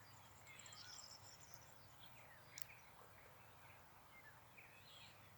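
Near silence with a few faint, scattered bird chirps.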